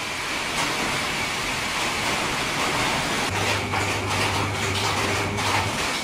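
Steady background hiss, with a low steady hum starting a little past halfway and stopping near the end. A few light clicks come from multimeter probes being handled on the washing machine start capacitor's terminals.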